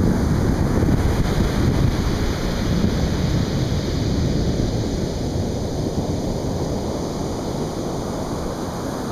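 Atlantic Ocean surf washing onto the beach, a steady roar of breaking waves easing slightly near the end, with wind buffeting the microphone.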